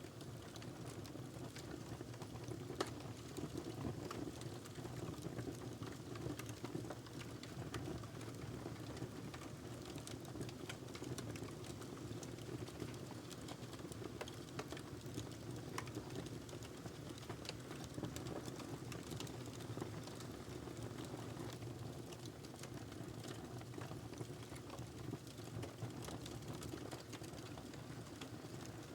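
Wood fire burning in a fireplace: a steady low rush of flame with irregular sharp crackles and pops, one of the louder pops about three seconds in.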